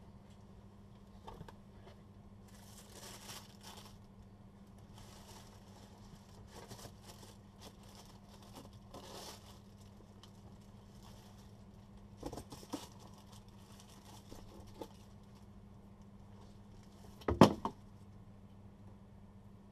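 Cardboard shoebox and tissue paper rustling and crinkling in short bouts as a hiking boot is unpacked, with one sharp knock near the end that is the loudest sound.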